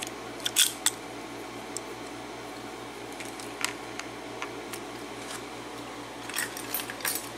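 Small, sharp metallic clicks and taps from a lock and metal tools being handled, scattered and sparse with a quick cluster near the end, over a steady low hum.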